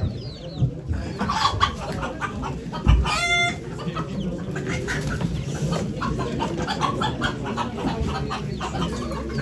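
Chickens clucking and squawking, with a thump and one short squawk about three seconds in.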